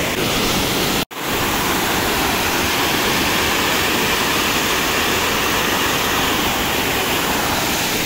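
Steady rushing of water from a small waterfall, with a momentary dropout about a second in.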